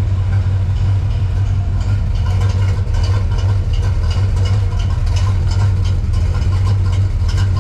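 Dodge D100 pickup's engine idling steadily, with faint light ticking over the low drone; it carries a noise that the owner has not yet traced.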